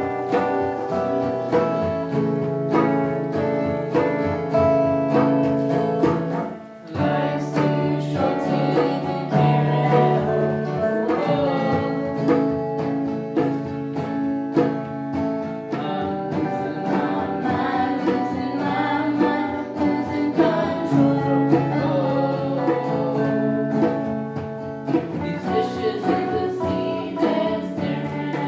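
A song performed with guitar accompaniment and singing, with a brief break in the music about seven seconds in.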